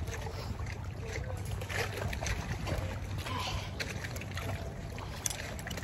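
Wet water splashing and dripping faintly as a magnet-fishing rope is hauled up out of the water hand over hand, over a steady low wind rumble on the microphone.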